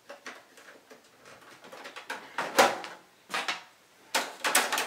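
Plastic and metal clicks and scrapes from an optical drive being fitted into the front bay of a Dell Dimension 5150 tower case. The knocks are irregular, with the loudest a little past halfway and a quick run of clicks near the end.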